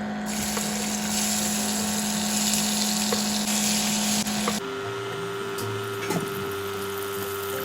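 A small electric motor runs steadily with a hum and a hiss. About four and a half seconds in it cuts to a different, higher steady hum.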